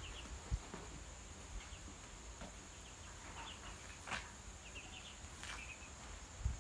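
Ducklings peeping faintly, in small groups of two or three short, high chirps that recur every second or two. A steady high-pitched tone runs underneath, with a couple of faint soft knocks.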